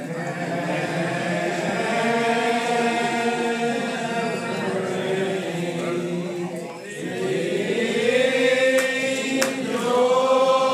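Unaccompanied congregation singing a lined-out hymn in the slow, drawn-out Old Regular Baptist style. The voices hold long notes that bend slowly from pitch to pitch, and a new phrase swells up about seven seconds in.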